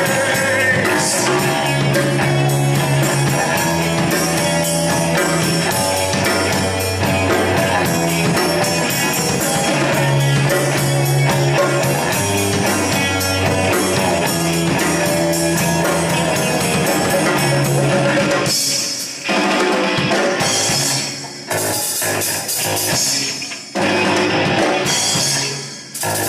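Rock band playing live on electric guitar, bass and drum kit, recorded with poor sound quality. About three-quarters of the way through, the full sound breaks into short stop-and-start hits with brief gaps between them.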